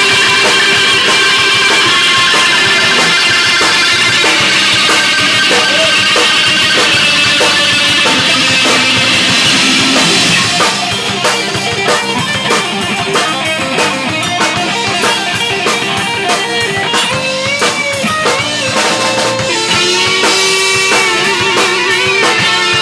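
A rock band playing an instrumental passage of a song, with guitars over a drum kit and bass. About ten seconds in, the dense sustained wash gives way to a choppier, stop-start rhythm.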